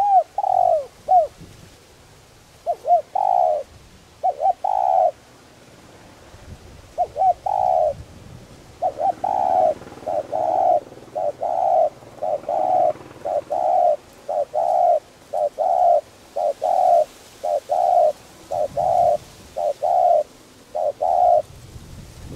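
Spotted dove cooing. It gives a few short groups of coos, then from about nine seconds a long, even run of quick repeated double coos, about one and a half a second.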